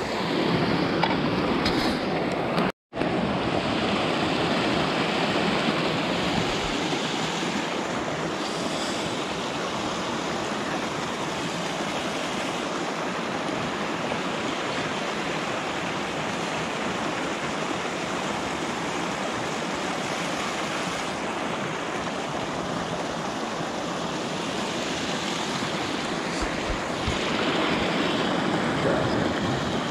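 Steady rushing noise of wind and water, broken by a brief complete dropout about three seconds in.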